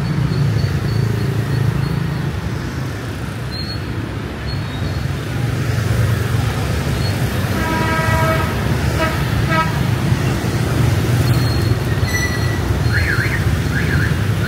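Steady city street traffic rumbling, with a vehicle horn honking twice in short blasts about halfway through. Near the end a rapid warble rises and falls several times.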